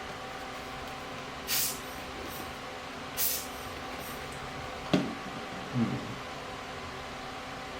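Small handling sounds of lens parts being worked: a sharp click about five seconds in and a soft knock just after. Two short puffs of air come earlier, over a steady background hiss and hum.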